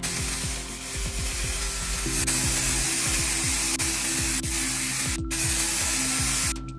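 Aerosol spray-paint can hissing in a long spray, with a brief break about five seconds in, and stopping just before the end. Background music plays underneath.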